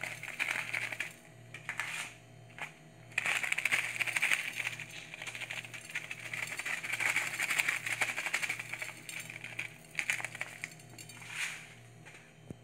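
Chocolate sprinkles scattered by hand onto a glazed cake and its glass plate: a dense run of tiny ticks in several spells, with short pauses between handfuls.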